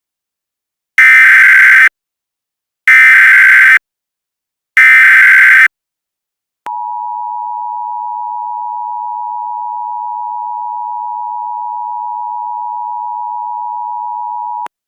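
Emergency Alert System broadcast tones: three short bursts of SAME header data about a second apart, then the steady two-tone EAS attention signal held for about eight seconds and cut off suddenly.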